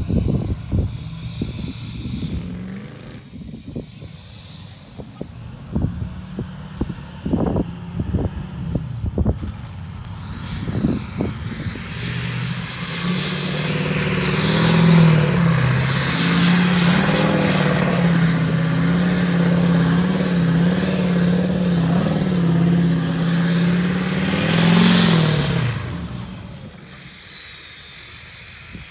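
Hummer H1's turbo-diesel V8 running as the truck drives in close on sand, a steady engine note with a high whine over it, loudest from about 13 to 25 seconds in, then fading away. The first ten seconds hold irregular low thumps over a fainter engine.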